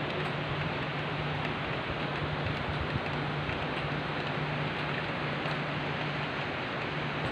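Heavy rain falling in a steady, unbroken hiss, with a steady low hum underneath.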